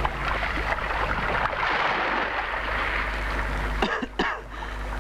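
Steady rush of sea water and wind, then a man coughing a few short times near the end, a sign of illness.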